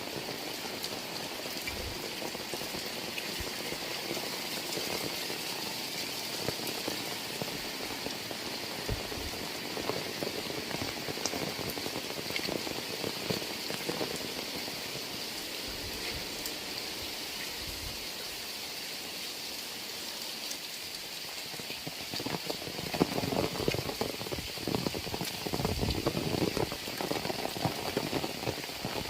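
Heavy rain falling, a steady hiss of drops with scattered sharper drop ticks. Over the last several seconds the patter gets louder and more uneven.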